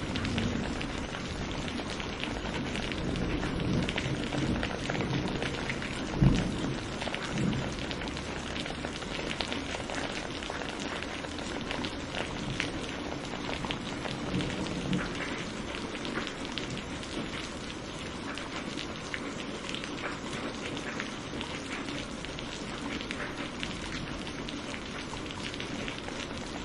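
Steady rain falling, with close pattering drops. A roll of thunder dies away in the first couple of seconds, and a short, loud clap of thunder comes about six seconds in.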